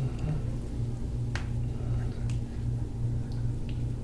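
A few small, sharp clicks as the wrist and hand are manipulated, the clearest about a second and a half in and fainter ones later, over a steady low hum.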